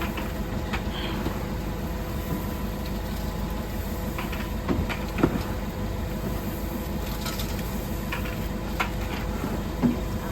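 Steady mechanical rumble with a few sharp knocks and clatters, the loudest about halfway through and another near the end.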